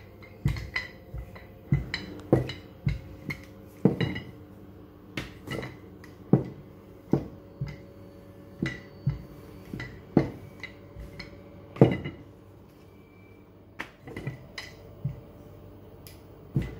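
Wooden rolling pin knocking and clacking against the countertop as roti dough is rolled out, in irregular sharp knocks about two or three a second, with a short pause about halfway through.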